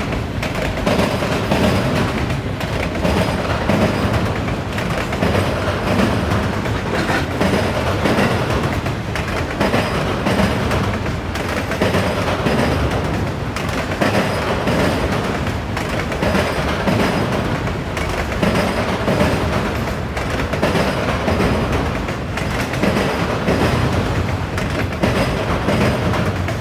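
Steel wheels of a CSX auto rack freight train's cars hammering over a railroad diamond crossing as the cars roll past, a continuous clatter with a steady run of beats.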